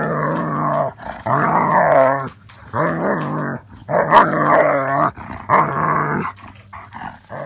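German Shepherd growling: five long, drawn-out growls of about a second each, with short pauses between them.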